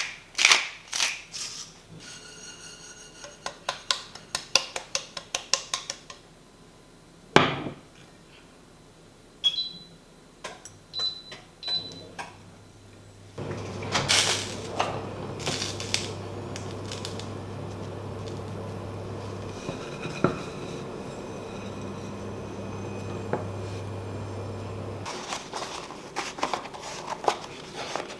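Dishes and cutlery clinking and knocking in kitchen work, then a few short high beeps and a steady hum from a kitchen appliance running for about ten seconds before it stops; more clinks follow near the end.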